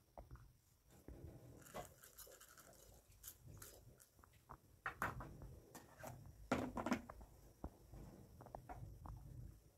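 Soft, scattered clicks and rustles of plastic food containers and lids being handled as ingredients are added to a glass mixing bowl.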